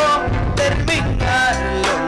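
Norteño band music played loud for dancing: a sustained instrumental melody over bass and regular drum strokes, with no singing in this stretch.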